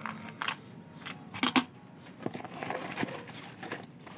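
Unboxing handling of a mini grinder kit's packaging: scattered plastic clicks, taps and light crinkling, with one louder knock about a second and a half in.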